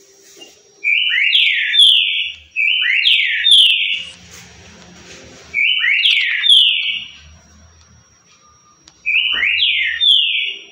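Green-winged saltator (trinca-ferro) singing its 'currucutil' song type: a short phrase of three quick notes, repeated four times with pauses of one to three seconds between.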